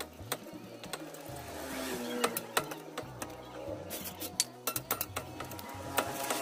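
Centre stand of a Honda Scoopy FI scooter being worked back and forth by hand on its rusted, freshly lubricated pivot shaft: irregular metal clicks and clunks as the seized shaft loosens, over low background music.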